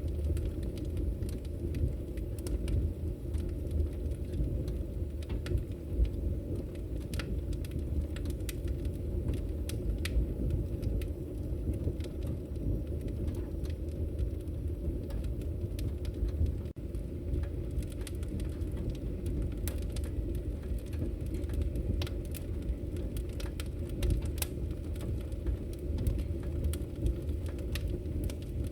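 A fire burning in a fireplace: a steady low rumble with scattered sharp crackles and pops.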